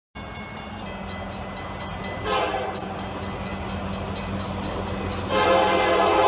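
Diesel locomotive's air horn sounding a short blast about two seconds in, then a long blast starting near the end, as the train approaches a level crossing with its engine running underneath.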